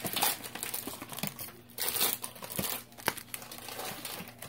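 Foil wrappers of baseball card packs crinkling and rustling as they are handled, in irregular bursts with a sharper crackle about three seconds in.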